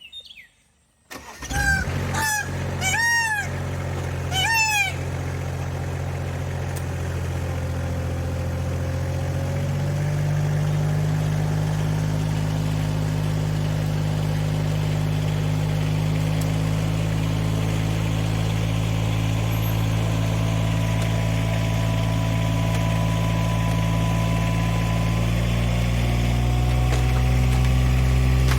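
Bobcat skid-steer engine starting about a second in and running steadily, picking up speed around ten seconds in and again near the end. A peacock gives four loud calls in the first few seconds as the engine catches.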